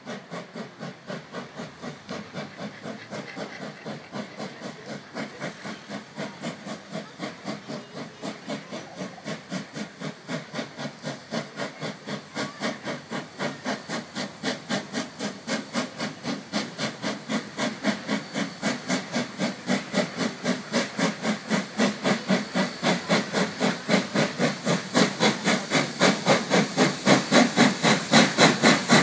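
NSWGR C35 class steam locomotive 3526 hauling a passenger train, its exhaust chuffing in even beats about three a second. The beats grow steadily louder as the engine approaches.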